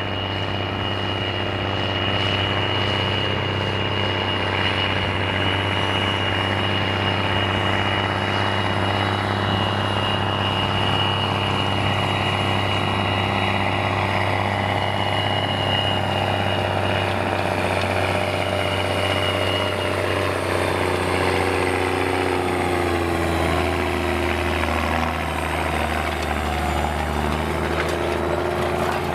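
Belarus MTZ-3022 tractor's diesel engine running steadily under load while pulling a disc harrow through the soil, with a thin high whine over the engine for most of the time. About twenty seconds in, the engine note shifts lower.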